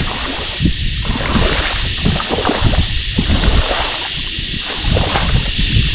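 Feet wading through shallow water, sloshing and splashing with each step.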